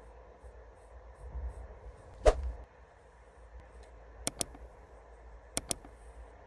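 Mouse-click sound effects from a subscribe-button animation: two quick clicks about four seconds in and two more about a second later. Before them, a single sharp knock about two seconds in, the loudest sound here.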